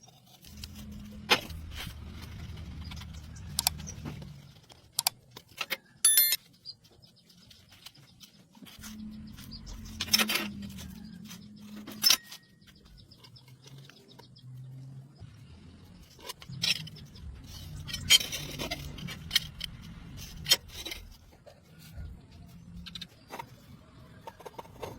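Metal workpieces and hand tools being handled: scattered clinks, taps and knocks, some ringing briefly, with bits of scraping and rubbing.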